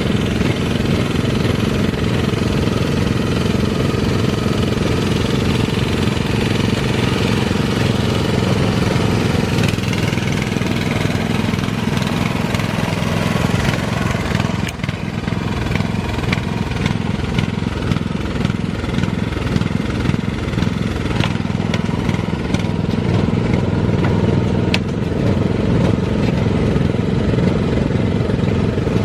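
Rice transplanter's small engine running steadily as the machine travels, with a brief dip in level about halfway through and scattered light clicks and clatter after that.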